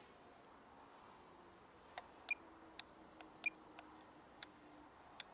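About nine short, sharp clicks, irregularly spaced over three seconds against a quiet background, two of them louder than the rest.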